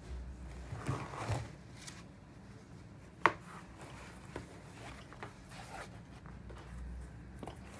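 Handling noise as a cloth tote bag is rustled and a paper watercolour pad is drawn out of it, with a single sharp tap about three seconds in.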